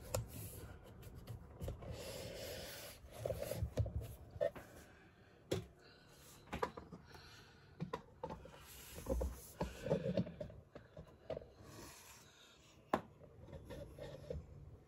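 Handling noise as the camera is picked up and repositioned: scattered rubbing and scraping with a few light knocks and clicks.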